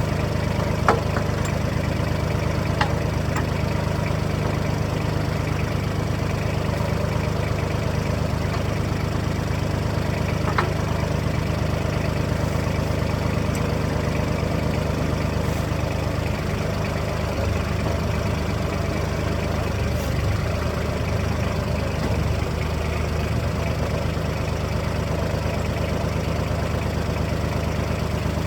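Kubota tractor's diesel engine idling steadily, with a few sharp metallic clicks.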